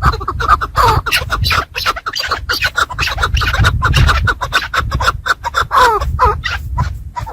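Chukar partridges calling: a fast, continuous run of sharp chucking notes with short cries, a few of them falling in pitch around six seconds in, over a steady low rumble.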